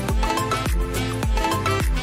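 Upbeat background music with a steady beat, about two low drum thumps a second under bright melodic notes.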